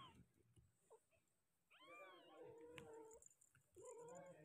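Young kittens mewing faintly. One high mew rises and falls about two seconds in and runs on into a lower, drawn-out cry, and a shorter mew comes near the end.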